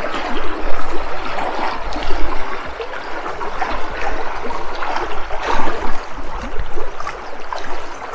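Small mountain creek running fast and full with spring runoff, water rushing and gurgling over rocks in a steady, wavering rush.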